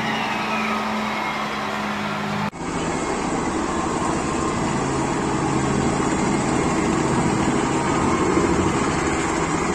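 Helicopter running, heard from a distance as a steady mechanical drone. The sound cuts abruptly about two and a half seconds in, and the drone comes back louder and denser.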